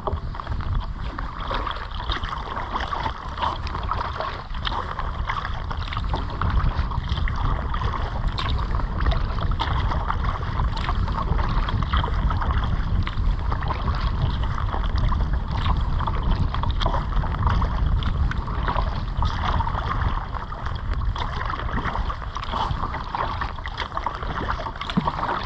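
Water splashing and lapping around a kayak being paddled, with steady wind rumbling on the microphone.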